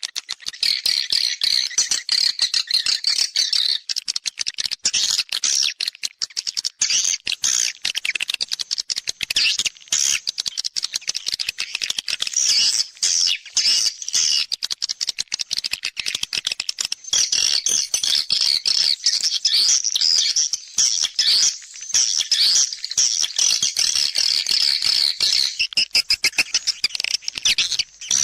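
Swiftlet-house lure recording: a dense, continuous chatter of many swiftlets' rapid twittering chirps and clicks. It is an 'external sound', the call track played from a swiftlet house's outside speakers to draw swiftlets in to roost and nest.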